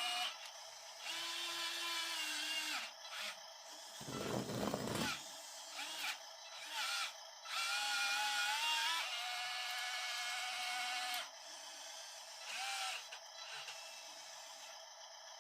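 Small electric motors of 1:50 scale RC construction models whining in bursts of one to two seconds, each burst at its own steady pitch, with a short, louder rough rumble about four seconds in.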